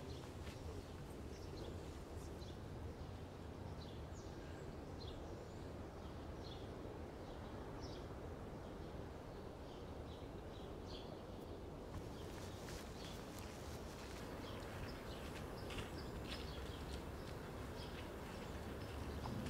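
Faint outdoor ambience: short bird chirps come and go over a low steady rumble, and the chirps grow busier about twelve seconds in.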